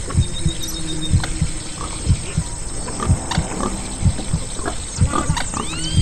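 A mixed animal soundscape: a heartbeat thumps about once a second under pig grunts and other animal calls, with a few high arching calls near the end.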